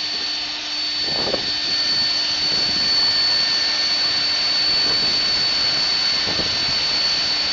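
EXCITECH CNC router spindle running steadily, a high constant whine over a loud hiss.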